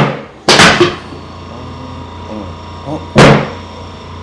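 Three loud, sharp knocks from chiropractic adjustment thrusts on the hips. The first two come about half a second apart and the third about three seconds in, each dying away quickly.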